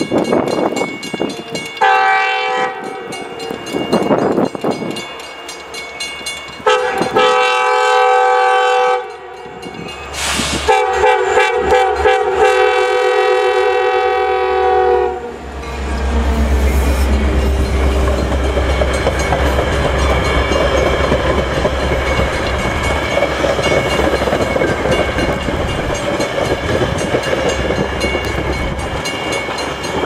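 Metra MP36 locomotive horn sounding for a grade crossing: a short blast about two seconds in, a longer one around seven seconds, then a long blast held for about five seconds. The train then passes close by, with a deep diesel rumble and the steady noise of bilevel coaches rolling over the rails.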